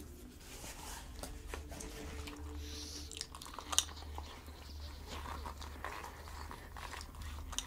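Faint rubbing and small clicks of a rubber pup hood being handled as nose tubes are pushed into its nostrils, with one sharper click a little under four seconds in, over a low steady hum.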